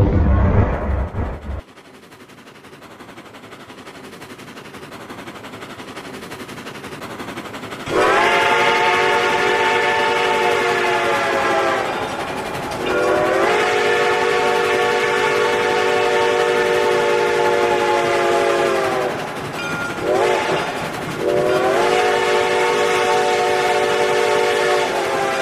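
A low boom, then a train rumble growing steadily louder as it approaches. Then three long blasts of a multi-note train horn over the rumble, the second the longest.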